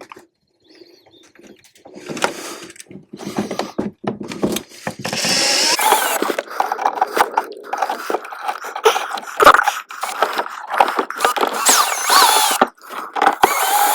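Power screwdriver or drill running in short bursts, driving an electrical outlet's mounting screws into its box, with scraping and knocks as the outlet is worked into place. Mostly quiet for the first few seconds.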